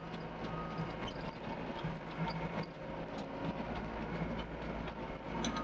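Doosan DX55 mini excavator's diesel engine running steadily, with frequent small clanks and rattles from the machine.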